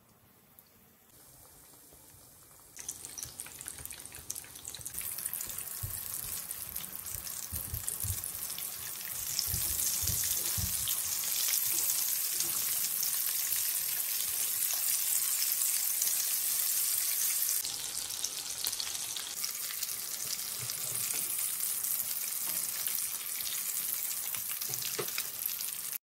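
Breaded egg and potato patties shallow-frying in oil in a nonstick pan: a quiet start, then a steady sizzle that begins a few seconds in and grows louder, with a few soft low knocks in the middle.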